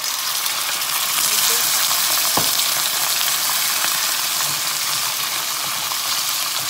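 Cubed raw beef sizzling steadily in hot oil in a stainless steel wok as it starts to brown and is stirred, with a single sharp knock a little over two seconds in.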